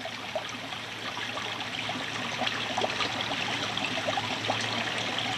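A shallow stream running over stones, an even rush of water with small splashes, growing gradually louder.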